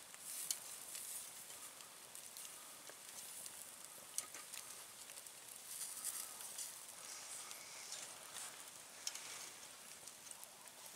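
Turkey skewers sizzling on a small charcoal grill, a steady faint hiss with occasional short clicks.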